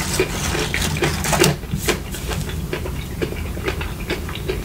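Eating sounds: chewing with irregular clicks several times a second, over a steady low rumble.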